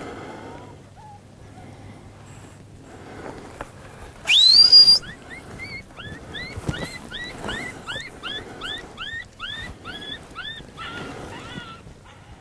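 A loud, sharp whistle glides steeply upward about four seconds in. A quick run of short, high chirping calls follows, about three a second, each rising then dropping.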